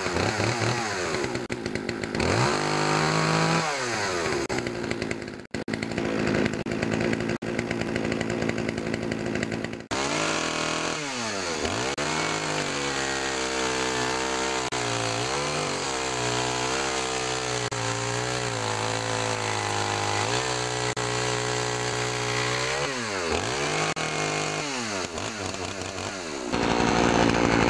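Poulan Pro PP4620AV 46 cc two-stroke chainsaw engine running, its revs rising and falling again and again as the throttle is worked, cut off abruptly a couple of times. It runs, but not as well as it should, and setting the carburettor makes little difference; the owner plans to clean the muffler first.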